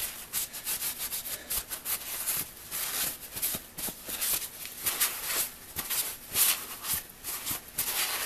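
Paper towel wet with mineral spirits rubbed over a wooden hand-saw handle, a scuffing wipe in quick, uneven repeated strokes.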